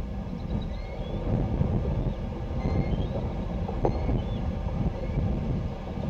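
Wind buffeting the microphone: a steady low rumble, with a few faint short bird chirps above it.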